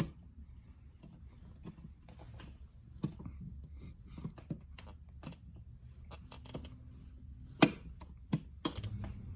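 Plastic dimmer wall plate cover being handled and snapped onto its mounting plate: scattered light clicks and taps, then a sharp snap about seven and a half seconds in and another shortly after.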